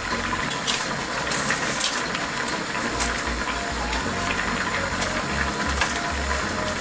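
Whole fish sizzling in hot oil on an oven rack: a steady hiss with scattered sharp crackles and clicks as metal tongs turn a tilapia.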